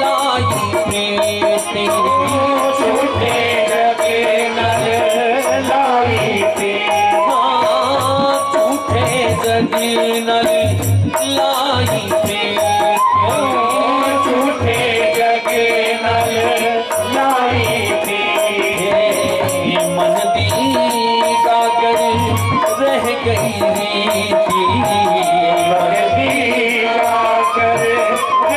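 Live devotional bhajan music: a man sings a gliding melody over steady held instrumental tones, with a regular drum beat and jingling percussion.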